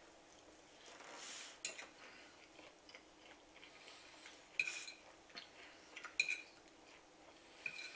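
Metal fork clinking and scraping against a plate as food is picked up: about four short, sharp clinks, each with a brief ring.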